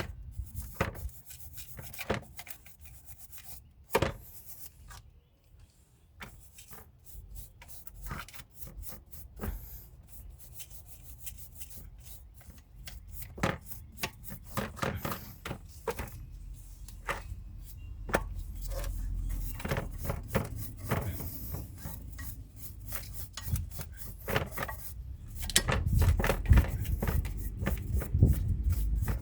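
A brush scrubbing a brake caliper bracket with quick, irregular back-and-forth strokes, cleaning the seats where the brake pad retainer clips sit. The scrubbing grows louder in the second half, with a low rumble underneath.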